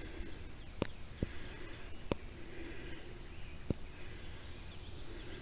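Swamp ambience: faint animal chirps over a steady high hum and a low rumble, broken by a few sharp clicks.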